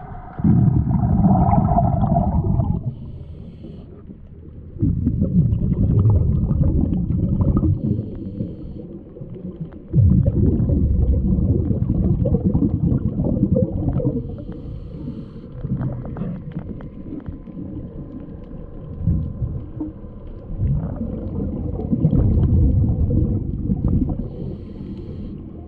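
Muffled underwater rumbling and gurgling in bursts of two to four seconds, picked up by a camera held beneath a boat's hull, with a faint steady tone behind.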